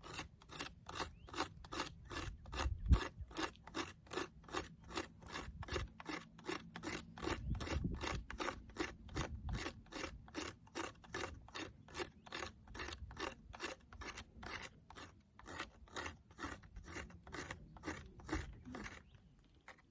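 The toothed hunting blade of a Victorinox Hunter XT pocketknife scraping a stick of ocote fatwood into shavings, in steady, even strokes about three a second.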